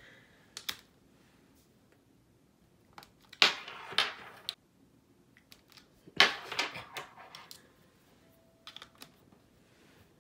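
Plastic electrical plug knocking and clicking against a wall socket as a cat paws it away: scattered small clicks, with two louder knocks about three and six seconds in.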